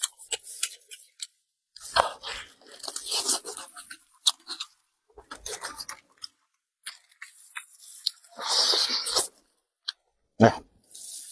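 A person chewing and eating close to the microphone, in irregular bursts with pauses, with a single loud knock about ten seconds in.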